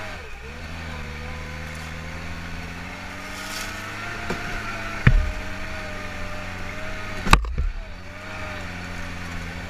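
Off-road buggy engine running steadily while driving, its pitch wavering a little. Two sharp knocks cut through, about five seconds in and again, louder, about seven seconds in.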